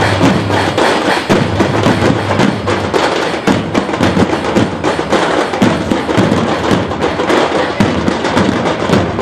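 Dhol-tasha drumming: loud, fast, crackling snare-like tasha strokes over the dhol, with no break.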